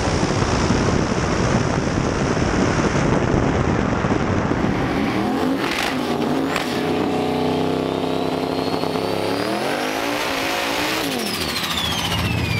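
Drag-racing car engines at wide-open throttle: first a full-throttle pass heard from on board the car. After about four and a half seconds a different engine revs, rising in pitch several times, and near the end a car does a burnout, tyres spinning.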